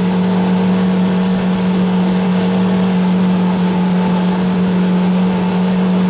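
Motorboat engine running steadily at cruising speed, a constant, even drone with wind and water noise.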